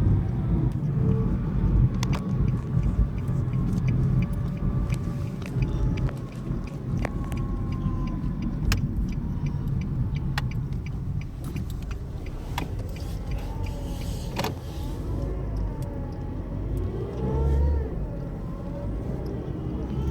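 2013 Nissan Versa running with a steady low rumble and scattered light clicks. A faint whine wavers up and down in pitch in the second half.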